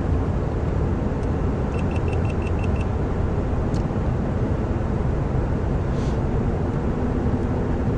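Steady low rumble of a car running, heard throughout. About two seconds in comes a quick run of about seven short, high electronic beeps.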